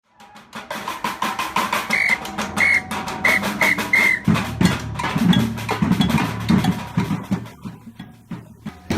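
Percussion band drumming: rapid, dense drum strokes start just after the opening, with five short high notes between about two and four seconds in and deeper drums joining at about four seconds.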